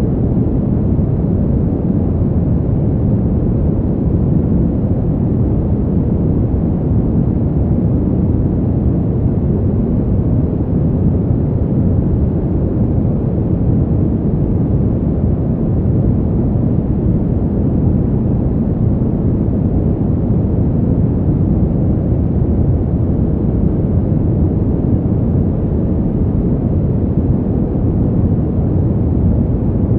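Continuous brown noise: a steady, deep rushing hiss with most of its energy in the low range and little treble, unchanging throughout.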